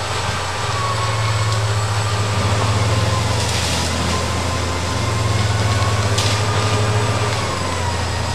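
Crawler bulldozer's diesel engine running as the machine works through forest, a low pulsing engine note with a high whine that slowly wavers in pitch.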